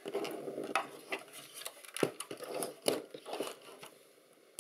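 Hand-tool handling noise on a metal electronics chassis: a small screwdriver knocking and scraping against the aluminium front section, with a few light clicks over rustling, quieter near the end.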